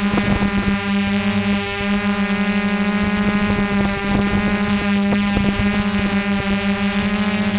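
Quadcopter drone's motors and propellers running at a steady hover-to-cruise speed: a loud, constant buzz at one pitch with many overtones, heard close from the camera mounted on the drone.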